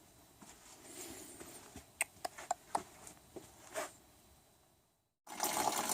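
A handful of sharp light clicks and knocks, then a short dead gap, and near the end a steady rush of coolant pouring out of the car's radiator drain.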